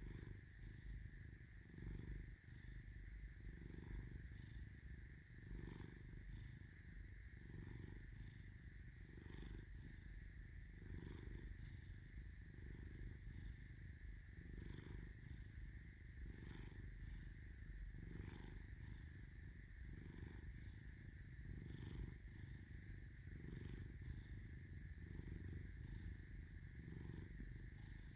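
Domestic tabby cat purring steadily and contentedly while its head is scratched, the low purr swelling and easing with each breath about every second and a half.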